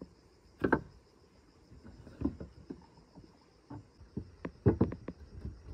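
Wood chisel struck with a piece of wood, cutting into a plank: irregular sharp knocks, the loudest about a second in and a quick run of them near the end.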